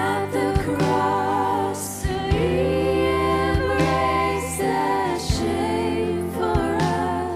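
Live worship music: a woman's voice singing long, wavering lines without clear words over sustained instrumental chords and a steady low bass tone.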